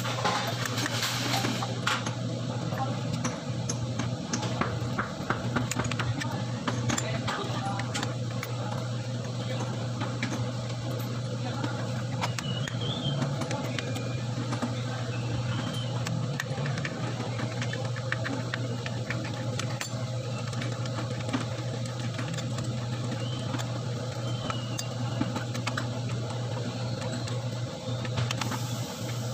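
Scattered light metallic clicks and taps of hand work on engine parts, over a steady low hum.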